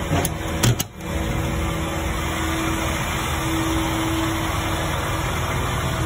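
Diesel truck engine idling steadily, the PACCAR MX-13 of a Kenworth T880 concrete pump truck, with a few sharp clicks and a brief dip in level within the first second.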